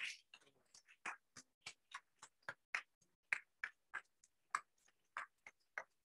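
Faint, sparse hand clapping from a small audience: single claps about three or four a second.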